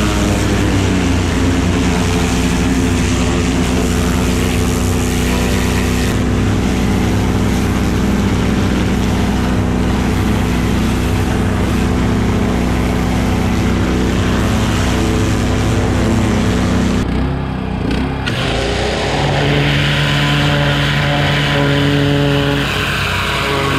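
Gas-engine hot-water pressure washer running steadily, its spray hissing hard against the excavator's blade and boom. About 17 seconds in the sound dips briefly and returns with a different engine note.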